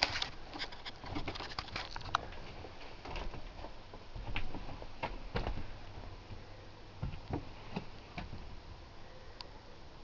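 Handling noise from a handheld camera moving around a small caravan interior: a quick run of light clicks and rustles in the first couple of seconds, then scattered soft knocks and taps.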